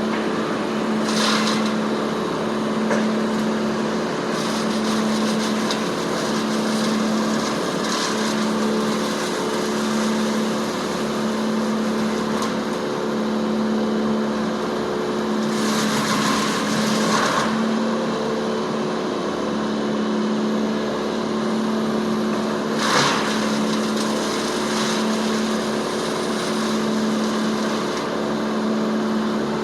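An engine running steadily, its low hum swelling and fading about once a second, with a few brief louder noises over it.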